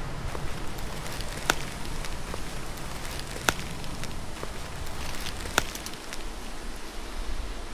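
Footsteps through dry leaf litter and twigs, with three sharp cracks of twigs snapping about two seconds apart, over a steady rumble of wind on the microphone.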